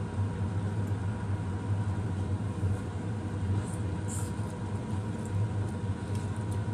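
Steady low mechanical hum with a thin steady tone above it, and a couple of faint brief sounds about four seconds in.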